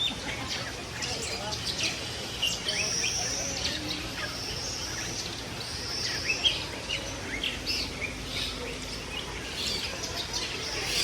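A mix of caged birds chirping and calling over each other: many short, high chirps, with a few longer, high, steady whistles in the middle of the stretch.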